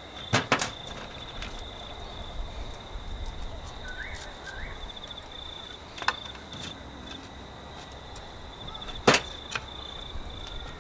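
A kitchen knife knocking a few times on a plastic cutting board as garlic cloves are peeled and sliced, with sharp knocks about half a second in, about six seconds in and, loudest, about nine seconds in. Insects chirp steadily in a high, pulsing trill behind it.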